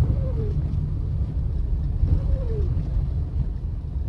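Steady low rumble of a vehicle driving slowly on a snow-covered road, heard from inside the cabin. A short, falling, moaning tone comes back about every two seconds.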